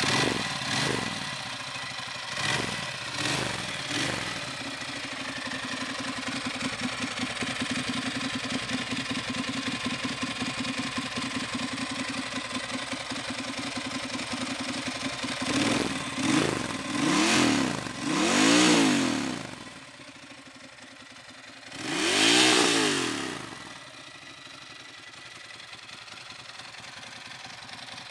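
Ducati Monster 1100 S air-cooled L-twin idling with a lumpy beat, blipped by the throttle a few times near the start. Later comes a run of short revs that rise and fall, then one longer, high rev before it settles back to a quieter idle.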